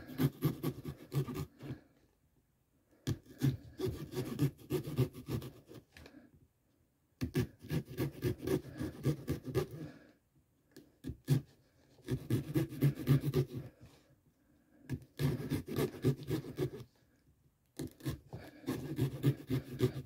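A blade sawing through pumpkin rind and flesh in spells of quick back-and-forth strokes, each lasting two to three seconds, with short pauses between.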